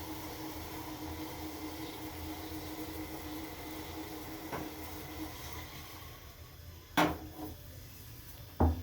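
A steady electric hum from a running kitchen appliance fades out about five seconds in. A light knock comes just before it ends, then two loud, sharp clacks about a second and a half apart, the second with a low thud.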